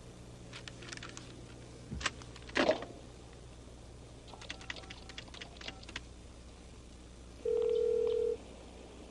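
Telephone call being placed: a couple of sharp knocks as the handset is handled, a quick run of clicks as the number is dialed, then near the end the ringing tone sounds in the earpiece for about a second.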